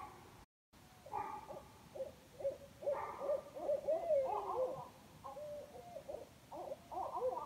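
Animal calls: many short rising-and-falling pitched notes, several voices overlapping one another, after a brief dropout to silence about half a second in.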